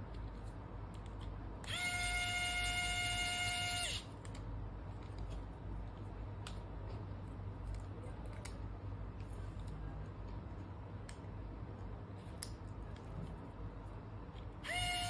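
Small electric precision screwdriver motor whining at a steady pitch for about two seconds while driving a tiny screw into a robot servo bracket. It starts again near the end, with a few light clicks of small parts being handled in between.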